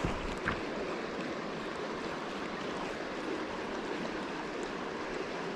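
River water rushing steadily over rocks and riffles along the bank, with one light tap about half a second in.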